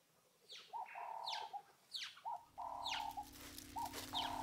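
Helmeted guinea fowl calling repeatedly in short pairs, a quick note then a longer one, starting about a second in, with high falling chirps of other birds around it. A low steady hum comes in about halfway.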